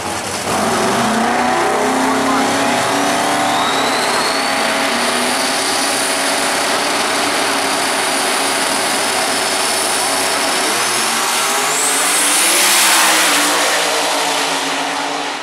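Two doorslammer drag race cars' engines held at high revs on the starting line, pitch climbing over the first few seconds, then a louder surge as they launch and run off down the track, falling away near the end.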